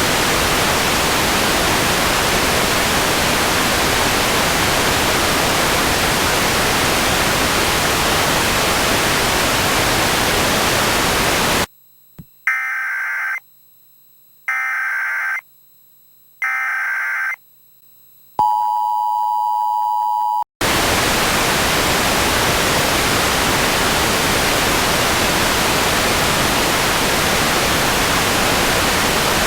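Loud steady static hiss. About twelve seconds in it cuts out for three one-second Emergency Alert System header data bursts, a second apart, then about two seconds of the two-tone EAS attention signal, and the static returns.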